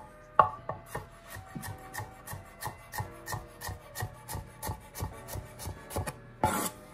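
Chef's knife dicing a red bell pepper on a wooden cutting board: a steady run of quick chops, about three a second.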